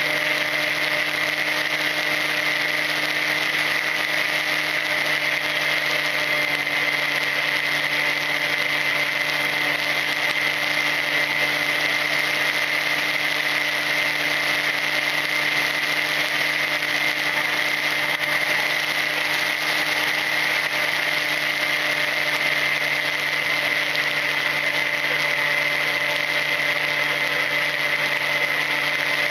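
Volantex Ranger EX's electric motor and propeller running at a steady cruise throttle, picked up by the plane's onboard camera. A steady high whine holds one pitch over a hiss of air rushing past the airframe.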